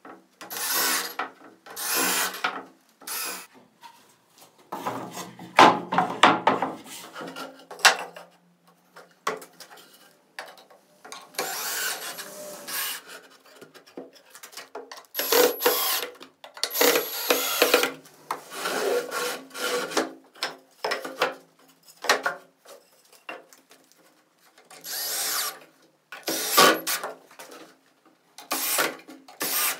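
Woodworking tools working on wood: a series of short, uneven bursts of tool noise, each lasting about half a second to two seconds, with short gaps between.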